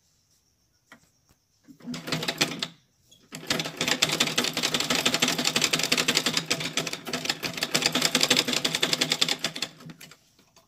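A sewing machine stitches rapidly with a fast, even clatter, sewing an elastic ear strap onto the edge of a cloth face mask. A short burst of stitching comes about two seconds in, then a longer run of about six seconds that stops near the end.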